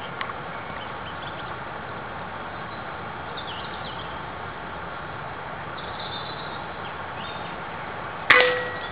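Steady background hiss with a few faint bird chirps, then near the end a single sharp crack with a brief ringing tail: a shot from an Air Arms S410 .177 pre-charged air rifle.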